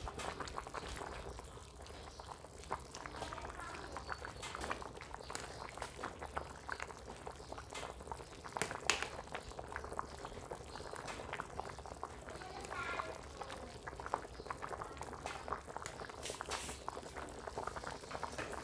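A pot of beef and vegetable soup boiling at a steady bubble, with a ladle stirring through it and clinking against the pot now and then; one sharper clink about nine seconds in.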